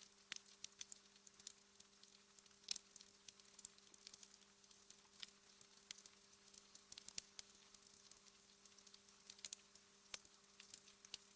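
Fire crackling in a fireplace: faint, irregular small pops and snaps, with one louder pop a little under three seconds in, over a faint steady low hum.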